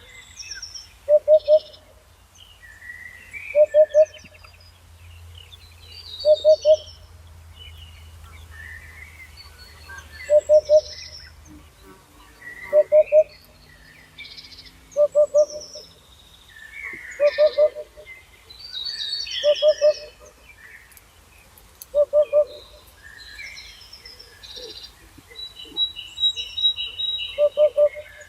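Birdsong: a low hooting call of a few quick notes repeats about every two and a half seconds, over a steady chorus of higher songbird chirps and trills.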